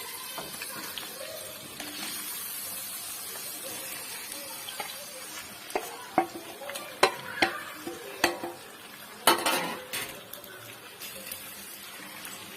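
Onions frying in oil in a tagine, a steady sizzle, as pieces of marinated rabbit are put into the pot. Between about six and ten seconds in come a series of knocks and clatters of meat and utensil against the pot, the loudest a little after nine seconds.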